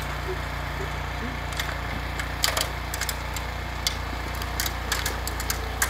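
Two-stage snow blower's small gasoline engine running steadily as it throws snow, with scattered sharp clicks and ticks over the engine hum.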